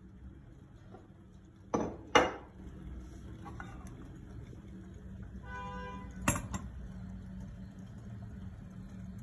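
Kitchenware clinking: a utensil knocks sharply against dishes twice close together about two seconds in, and once more later, over a low steady hum.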